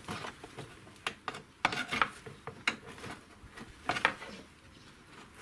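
Metal clinking and scraping as a front lower control arm is worked and wiggled into its mounting on the suspension, with several short sharp knocks of metal on metal.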